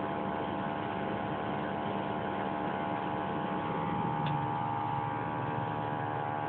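A steady mechanical hum with a whine from the truck, even in level and unbroken. The horn itself is not blown here.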